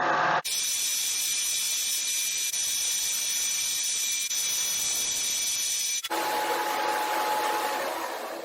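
Mini lathe running under power while turning a part, a steady machine hiss with a thin high whine; about six seconds in the sound changes and a lower steady tone takes over.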